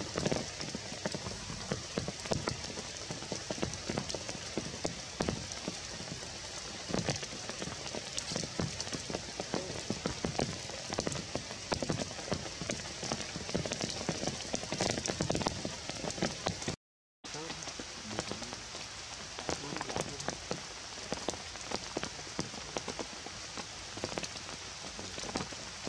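Steady rain pattering and dripping on leaves and wet ground: a constant hiss full of small drip ticks. It cuts out completely for a moment about seventeen seconds in.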